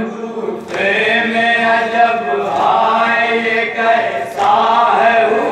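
Men's voices chanting a nauha, a Shia Muharram lament, in a held, sung line with breaks between phrases.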